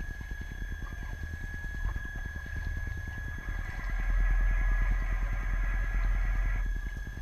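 RC tug boat's motor and propeller running under way, picked up by the GoPro mounted on the boat itself: a steady high whine over a fast, even low churning. The churning gets louder for a few seconds past the middle, then eases back.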